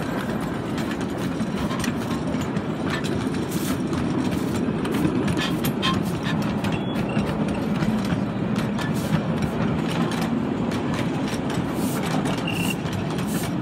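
Scale freight cars of a ride-on miniature railway train rolling past on the track: a steady rumble of steel wheels on rail with scattered clicks.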